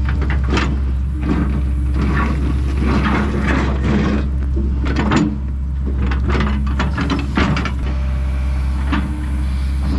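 Kobelco SK210 hydraulic excavator's diesel engine running steadily under work, with repeated knocks and clattering as material is moved.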